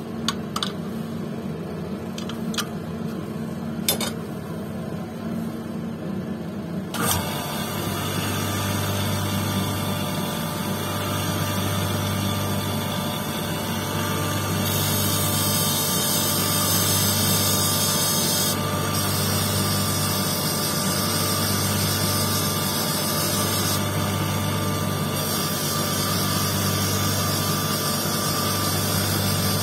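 A few sharp metal clicks from a wrench on the lap disc's nut. About seven seconds in, the lapidary lap's electric motor switches on and runs steadily with a pulsing hum. A hiss comes and goes as the quartz stone on its dop stick is pressed against the spinning disc.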